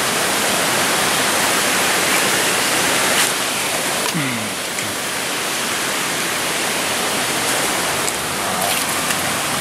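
Steady, loud hiss of water filling the whole range, like a nearby stream or rain. A short falling tone sounds briefly about four seconds in.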